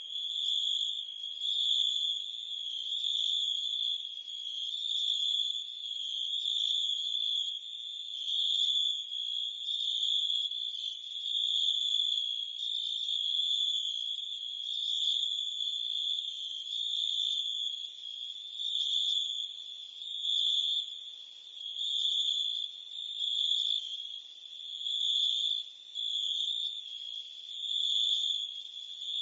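Crickets and cicadas chirping in a continuous high-pitched insect chorus that swells and fades every second or two.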